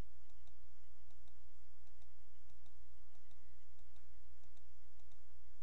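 Repeated faint computer-mouse clicks as a button is clicked over and over at an even pace, over a steady low electrical hum.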